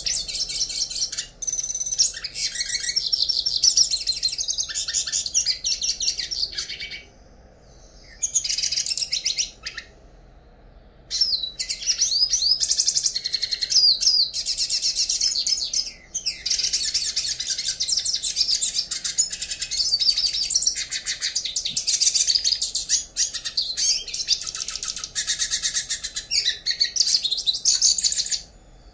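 Yellow-faced siskin singing: long runs of fast, high twittering and trills, broken by a few short pauses.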